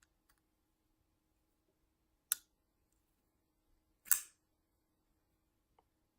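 Ruike P801 frame-lock flipper knife clicking as its blade is flicked open and locks up: two sharp metallic clicks about two seconds apart, the second louder with a short ring, and a few faint handling ticks.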